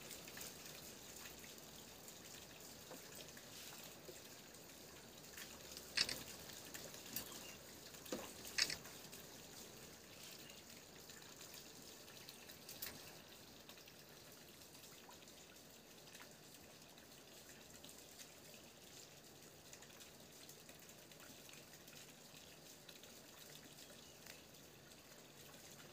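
Near silence: faint steady room hiss with a few soft clicks, the sharpest about six seconds in and a pair just past eight seconds.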